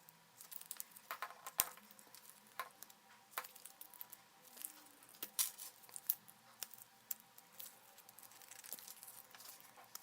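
Irregular light clicks, taps and short scraping noises from blender parts and tools being handled during repair work.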